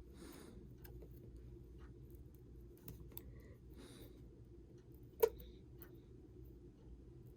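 Small scattered clicks and taps of tools and fingers handling the opened iPhone 6, with one sharper click about five seconds in, over a faint steady low hum.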